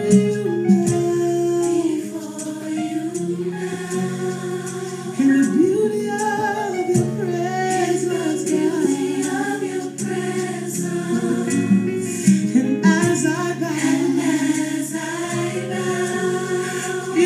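Christian worship song: a group of voices singing a melody of long held notes over sustained chords.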